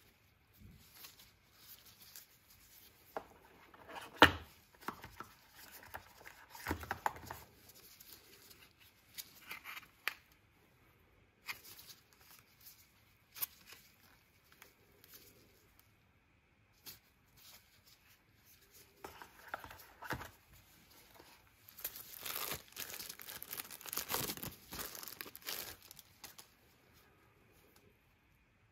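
Unboxing handling noises: scattered taps and clicks as a plastic phone charger and USB cable are picked up and set down, with a sharp knock about four seconds in. Bursts of crinkling plastic wrap, the longest and loudest a few seconds before the end.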